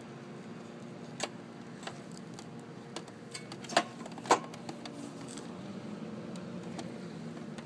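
A few sharp clicks and taps from hands handling parts on a scooter, the loudest two about half a second apart near the middle, over a steady low hum.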